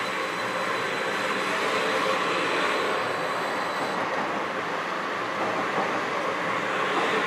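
Denver RTD light rail train rolling along the platform: a steady rumble of wheels on rail, with a thin high whine that stops about four seconds in.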